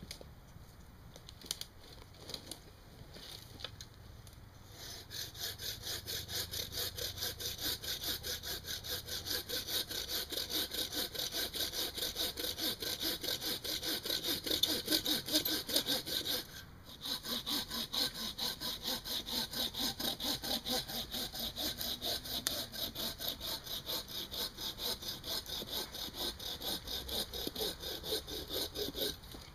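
Hand saw cutting through a branch in steady back-and-forth strokes, roughly two to three a second. The strokes start about five seconds in and break off once, briefly, past the halfway mark.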